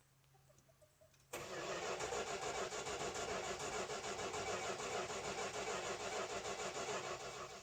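1971 Dodge Dart's 318 small-block V8 being started: the sound comes in suddenly just over a second in and then runs on steadily. A hard-starting engine, with the choke being set to get it going.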